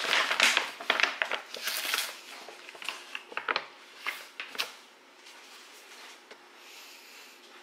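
Plastic packaging crinkling and rustling in quick sharp bursts as it is handled, with the contents being got out for a protein shake. The crinkling dies down about five seconds in.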